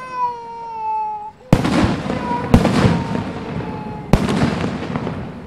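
A long whistling tone, slightly falling in pitch, fades out about a second in. Then three aerial firework shells burst with sharp bangs, one to one and a half seconds apart, each followed by an echoing rumble.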